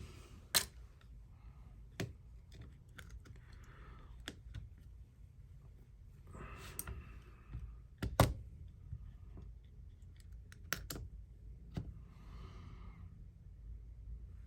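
Scattered small clicks and taps, with a couple of brief soft rustling or scraping sounds, as an opened iPhone and its plastic pry tools are handled on a workbench; the sharpest tap comes about eight seconds in.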